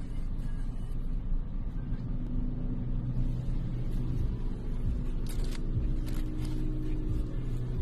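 Automatic car wash running, heard muffled from inside the car: a steady low rumble, with a steady hum joining about three seconds in and a few short hissing bursts in the second half.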